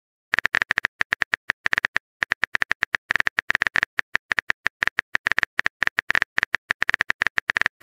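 Phone keyboard typing sound effect from a texting app: a fast run of short, high clicking taps, about ten a second in bursts with brief pauses, as a message is typed out letter by letter.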